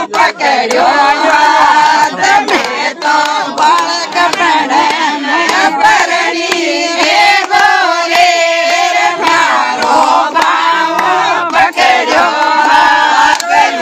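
A group of women singing a Rajasthani folk song together, with hand claps.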